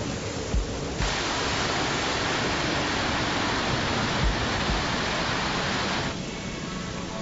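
Steady rushing noise of a tropical storm, heavy rain and water, that grows louder and brighter about a second in and drops back near the end, with a few brief low thumps.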